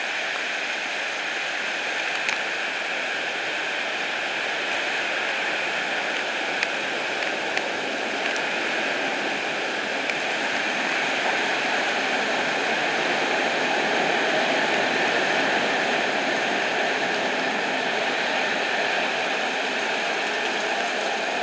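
Heavy rain pouring down in a steady, loud hiss, with a few sharp ticks in the first several seconds.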